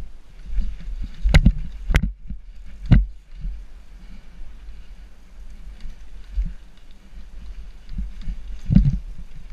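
Mountain bike rattling down a rough woodland trail, with sharp clacks and knocks as it hits bumps and roots: a cluster in the first three seconds and another near the end. A low wind rumble on the microphone runs underneath.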